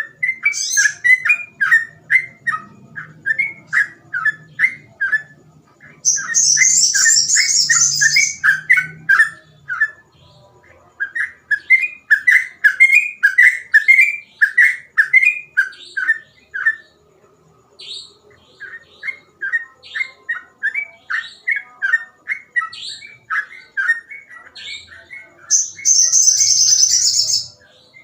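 A yellow-vented bulbul singing continuously in long runs of quick, bubbling whistled notes, a few a second, with short pauses between runs. Twice, a dense, high buzzy rattle lasting about two seconds rides over the song.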